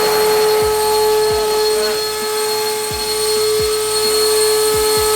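Twin Schübeler electric ducted fans running under power on a static thrust test, a steady whine over rushing air.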